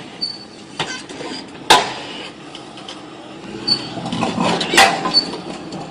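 Several sharp knocks or clanks, the loudest about two seconds in and near the end, with a few short high chirps between them.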